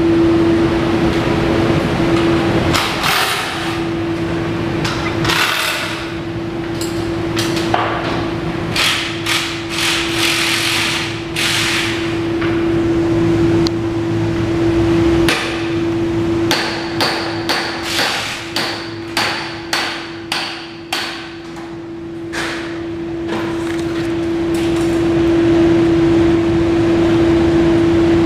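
Workshop hammering: repeated sharp metal strikes and clanks at irregular times, with a quick run of strikes about two a second in the middle. Under them runs a steady hum.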